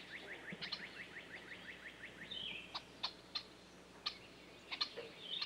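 Birdsong: a fast trill of short downward-sliding notes, about five a second, in the first couple of seconds, then scattered warbled notes and sharp ticking calls.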